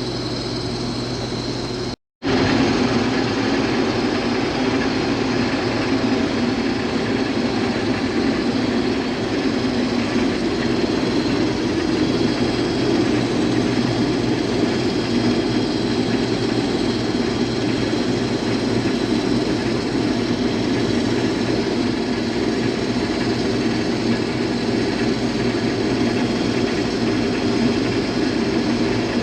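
Case IH combine running steadily under load while cutting a small test patch of wheat, heard from inside the cab. The sound cuts out briefly about two seconds in and comes back louder.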